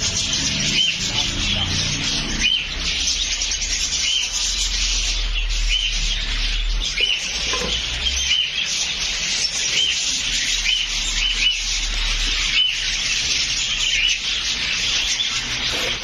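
Many caged small parrots chattering together: a dense, continuous twittering with many short chirps repeating through it.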